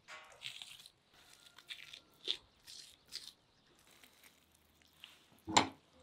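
Moist, tearing rustles of the thin membrane being peeled by hand off raw liver, in short scattered bursts. A louder single thump on the wooden board about five and a half seconds in.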